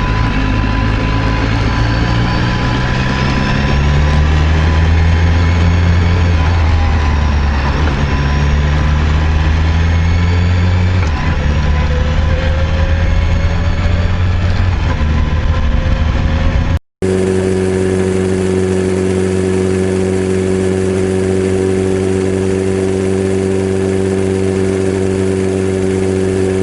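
BMW S1000RR inline-four engine running, its pitch slowly rising and falling for the first two-thirds. After a short cut it settles into a steady idle. The engine has a clattering noise that the dealer traces to a worn camshaft leaving a gap between cam and rocker arms.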